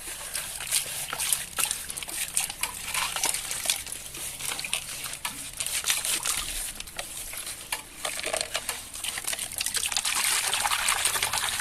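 Hands digging through wet material to uncover buried toys: many small scattered clicks over a trickling, wet hiss that grows denser near the end.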